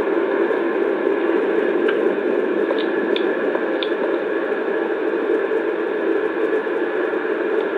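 Steady, static-like noise with a strong low band, unchanging throughout, with a few faint short high chirps a couple of seconds in.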